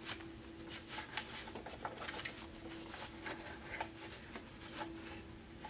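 Hands wiping and handling the cowling of a 1960s 7 HP ESKA outboard motor during cleaning with carb cleaner: a series of short, irregular rubs and scuffs.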